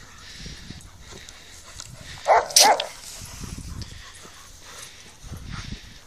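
A dog barking twice in quick succession, about two seconds in, over rustling in the grass.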